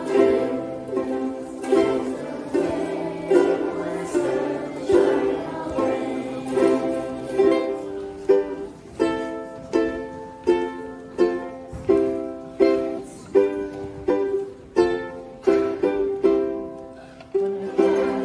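A group of children's ukuleles strummed together in unison, playing a song on a steady beat with a strong strum about every three-quarters of a second.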